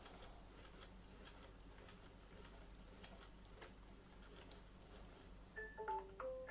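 Faint ticking, then near the end a short tune of electronic beeps stepping between pitches from a Neato XV11 robot vacuum cleaner: the chime it plays on docking to charge after its cleaning run.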